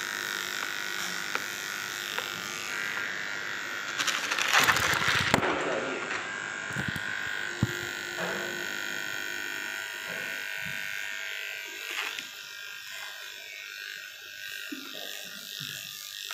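Electric dog-grooming clipper buzzing steadily as it shears a Shih Tzu's coat. A louder burst of noise comes about four seconds in, and the buzz grows weaker after about twelve seconds.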